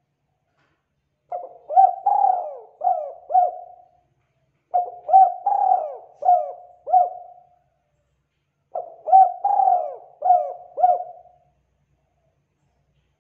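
A dove cooing: three phrases about a second apart, each a quick run of about five coos.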